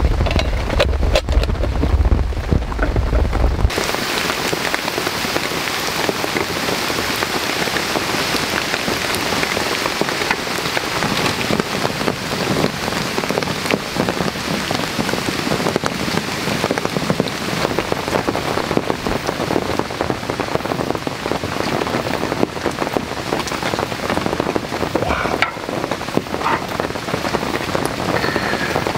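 Heavy rain falling steadily in an even hiss, starting about four seconds in after a low rumble cuts off.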